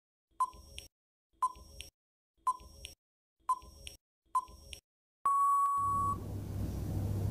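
Quiz countdown-timer sound effect: five short ticks about a second apart, then a steady beep lasting just under a second as the timer runs out.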